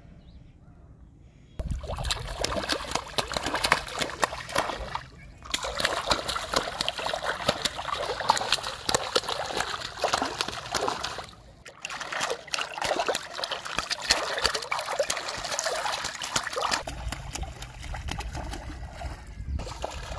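A hooked fish thrashing at the water surface: continuous splashing and spattering water. It starts sharply about a second and a half in and breaks off briefly twice.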